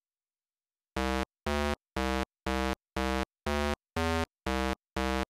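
About a second of silence, then a low, buzzy 8-bit synthesizer note repeated about twice a second at the same pitch: a retro video-game style sound effect for a pixel-art truck driving in.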